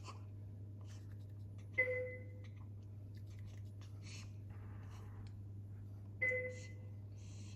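Hospital monitor beeping twice, about four and a half seconds apart: each beep a short, clear two-note tone that fades quickly, over a steady low electrical hum.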